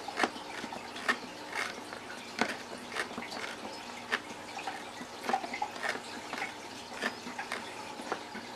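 Hand reamer twisted in a hole in a plastic tackle box lid, scraping and clicking in short irregular strokes about twice a second as it shaves plastic to widen the hole for a switch.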